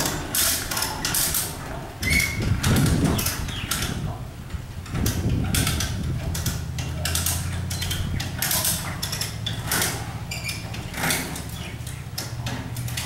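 Lever chain hoist being ratcheted by hand to lift a heavy steel welding table: the pawl clicks in irregular runs and the load chain rattles. A steady low hum sets in about halfway through.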